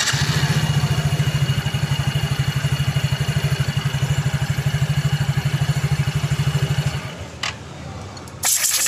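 Yamaha Mio J scooter's single-cylinder four-stroke engine idling with the CVT cover off, an even rapid pulsing, then shut off about seven seconds in. The engine starts and runs now that the broken rollers of its starter one-way clutch have been replaced.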